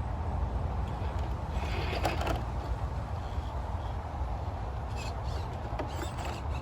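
RC rock crawler working over rocks: a steady low rumble, with short crunching scrapes about two seconds in and again twice near the end.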